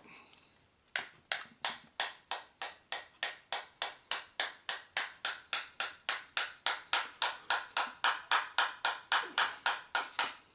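Rubber mallet tapping a tight-fitting part into a 3D-printed plastic housing, steady knocks at about three to four a second, starting about a second in, to work the part into place.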